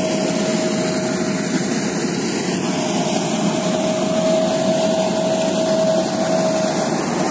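Combine harvester running steadily under load while cutting wheat: a continuous machine drone with one constant high whine over it.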